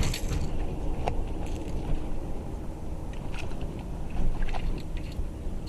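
Kayak on the water: a steady low rumble with a few scattered light clicks and knocks as the angler moves about on the boat.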